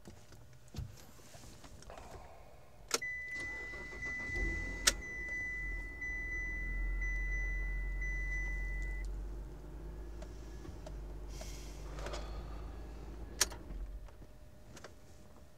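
Car sounds: a sharp click, then a steady high beep for about six seconds while the engine starts and runs with a low rumble. The rumble eases off after about nine seconds and dies away near the end, with another sharp click shortly before it stops.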